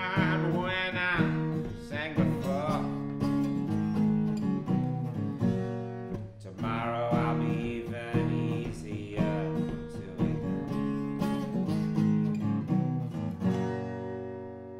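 Country song's closing bars on acoustic guitar with a wavering lead melody above it, ending on a final chord that rings out and fades near the end.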